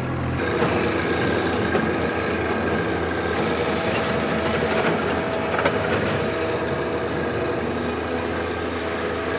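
Ventrac 4500 compact tractor running steadily under load, its power rake attachment spinning through loose soil and sod.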